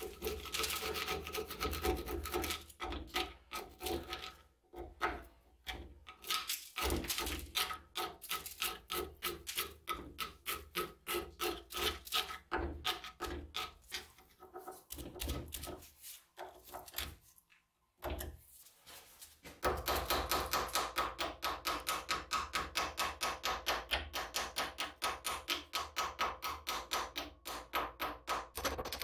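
A flat steel blade scraping rust and scale off an old forged hammer head held in a vise, in rapid repeated strokes about two or three a second with a few short pauses. About two-thirds of the way in it changes to quicker, steadier strokes of a hand wire brush scrubbing the rusty striking face.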